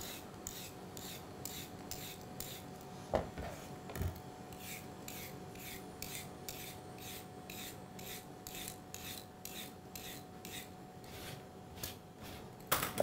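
Vegetable peeler scraping strips of skin off a carrot in quick, even strokes, about three a second. Two soft knocks come about three and four seconds in.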